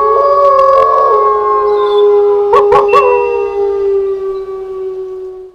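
Several canine howls overlapping in a long, drawn-out chorus, with three short sharp cries about halfway through; the howling fades out near the end. A spooky night-time graveyard howling sound effect.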